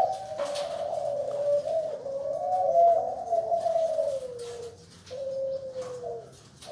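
Spotted dove (derkuku) cooing: a long, wavering run of low coos, then a shorter coo about five seconds in.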